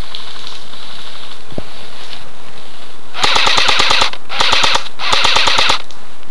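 Airsoft rifle firing three full-auto bursts of rapid clicking shots, starting about three seconds in: the first lasts just under a second, then two shorter ones follow. A single low thump comes about a second and a half in.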